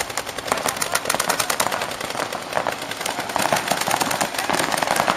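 Several paintball markers firing rapid streams of shots at once, a dense run of quick, overlapping pops.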